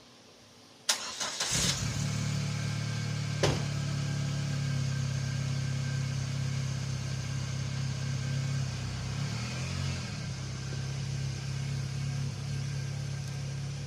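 A sharp click, then a Chevy Cavalier's engine starts about a second and a half in and settles into a steady idle. A second sharp knock comes a couple of seconds after the start, and the engine note shifts briefly later on.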